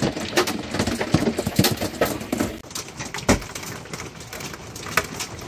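Hailstones striking a truck camper's roof and shell, heard from inside: a dense, irregular patter of sharp knocks, with one harder hit a little after three seconds in.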